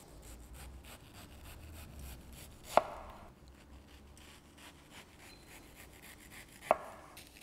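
A kitchen knife slicing through a peeled mango and striking a wooden cutting board. Two sharp knocks come about four seconds apart, with quiet cutting in between.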